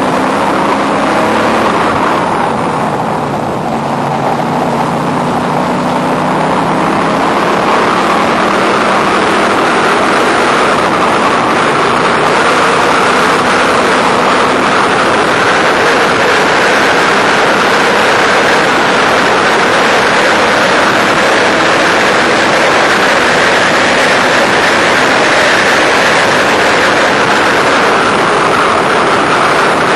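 Factory Five race car's engine heard onboard from the open cockpit. It eases off briefly about three seconds in, then pulls hard and holds steady high revs at full throttle down a long straight.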